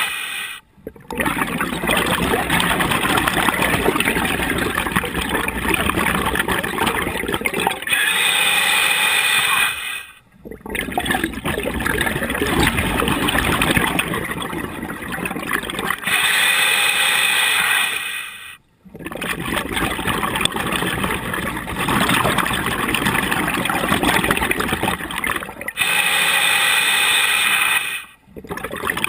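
A scuba diver breathing through a regulator underwater. Each breath is a short hiss of about two seconds followed by a long stretch of bubbling exhaust, and the cycle repeats about every eight seconds, some three times.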